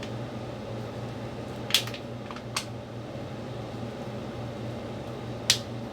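Steady low mechanical hum of a room fan, with a few sharp clicks: one about two seconds in, another about half a second later, and a louder one near the end.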